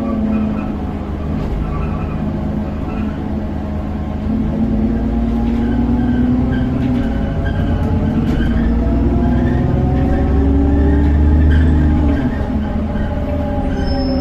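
Alexander Dennis Enviro400 double-decker bus's diesel engine pulling through acceleration, with a strained, several-pitched drone that rises and falls. It swells to a heavy low rumble toward the end, then eases off. This is the strange noise the bus makes when it accelerates, like it's going to explode.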